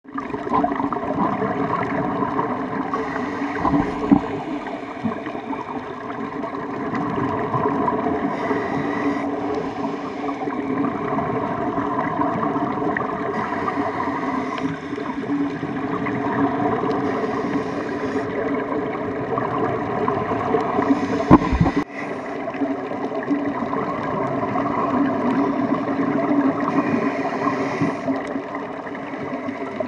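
Underwater sound picked up by a Garmin VIRB action camera in its waterproof housing: a steady muffled water rumble, with a scuba diver's regulator breathing hissing and bubbling every few seconds. Two sharp knocks stand out, one early and one about two-thirds of the way through.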